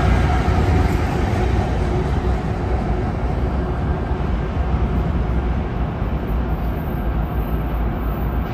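Union Pacific diesel freight locomotives and train rolling past, a steady deep engine rumble with wheel and rail noise that eases slightly, with a faint steady tone that fades in the first few seconds.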